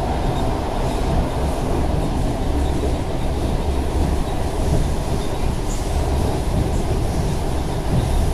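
ED4M electric multiple unit running along the track: a steady, loud rumble of wheels on rails.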